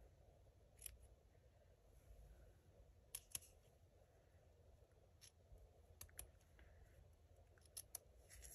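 Near silence with a few faint, scattered snips and clicks of scissors cutting small pieces for crafting.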